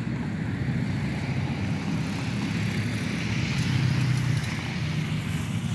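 Road traffic: a steady low rumble of cars, swelling a little about three to four seconds in as a vehicle passes.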